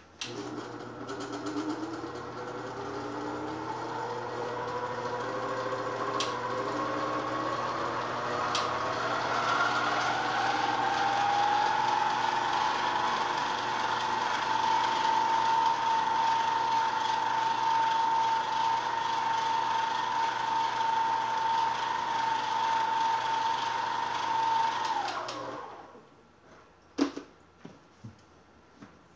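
A small electric kitchen appliance's motor running for about 25 seconds over a low steady hum. Its whine rises in pitch over the first ten seconds, then holds steady until it is switched off.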